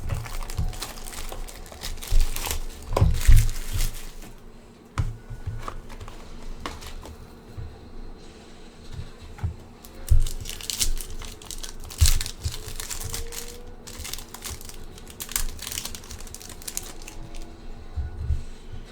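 Trading-card box and pack wrapper being opened: crinkling and tearing of the packaging, with scattered knocks and clicks from handling.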